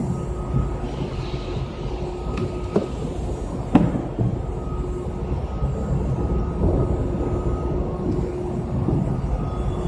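Powered warehouse truck rolling across a concrete floor: a steady rumble with a constant motor whine, and a couple of sharp knocks about three and four seconds in.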